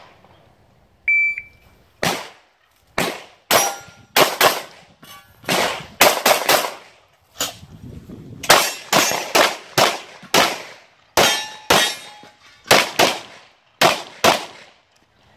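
A shot timer's start beep about a second in, then a pistol firing a long string of about two dozen shots in quick pairs and clusters with short pauses between them, as the shooter works through the stage.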